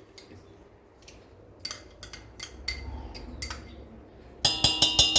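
Metal spoon clinking against a mixing bowl while a heaping spoonful of butter is added: a few scattered light clicks, then a quick run of ringing taps near the end as the butter is knocked off the spoon.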